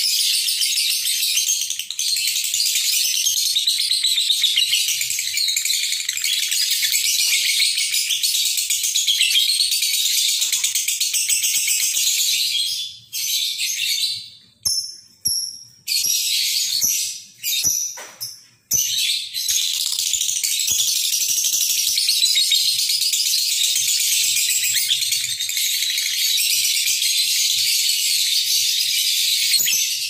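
Lovebird singing a long, rapid, high-pitched chattering trill (the ngekek song), breaking off several times for a moment about halfway through before going on.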